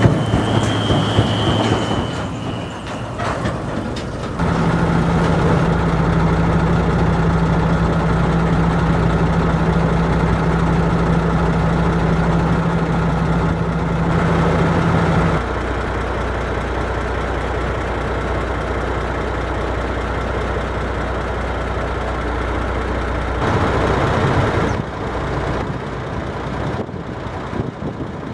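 Large harvest machinery running, combine harvesters and tractors, with a steady engine drone and a constant low hum. The sound changes abruptly about 4, 15 and 23 seconds in, as one machine's noise gives way to another's.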